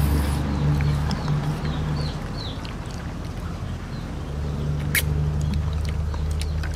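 Two people eating mussels and rice by hand, with chewing and sucking at the mouth, small clicks of shells and utensils, and one sharper click about five seconds in. A steady low hum runs underneath.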